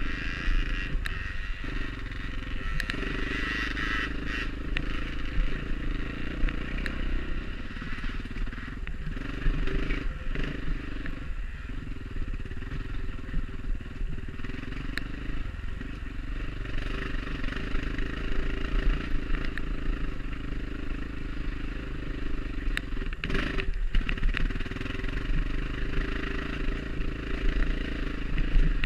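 Off-road enduro motorcycle engine running under throttle on a dirt trail, its sound dropping briefly a few times, around 3, 10, 11 and 23 seconds in, as the throttle eases off or gears change.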